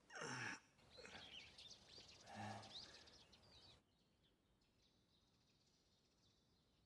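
Near silence, broken by two faint brief sounds in the first three seconds, the first one falling in pitch.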